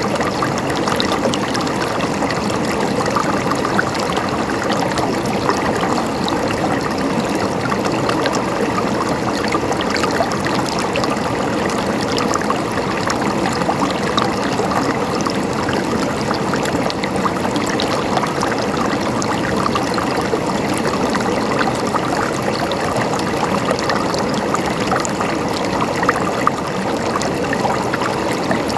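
Flowing water running and gurgling steadily, with constant small splashes and bubbling over an even rush.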